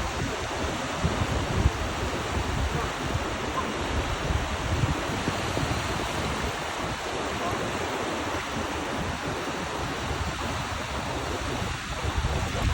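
Gulf of Mexico surf: a steady rush of waves breaking and washing ashore, with wind rumbling on the microphone.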